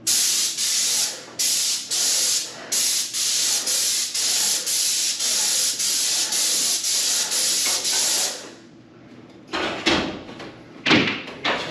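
Paint sprayer hissing in short bursts as the trigger is pulled and released, spraying touch-up paint. The bursts come about two a second from a few seconds in and stop about eight seconds in. A few knocks follow near the end.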